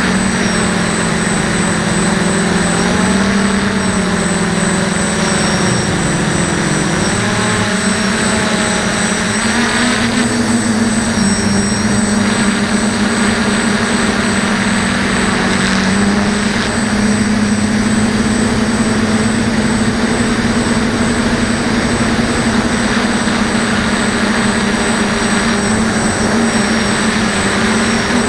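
DJI F450 quadcopter's electric motors and propellers buzzing loudly and steadily, heard from the camera on board the drone; the pitch wavers and dips a few seconds in as the throttle changes, then holds.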